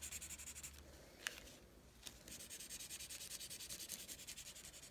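Washable felt-tip marker scribbling back and forth on a paper coffee filter over newspaper: faint, quick, rhythmic scratchy strokes. The strokes pause about a second in, with a light tick, then resume.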